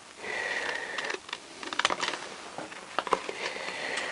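Hand work on a small piece of sheet metal: a scratchy scrape for about a second, then a run of irregular light clicks and taps.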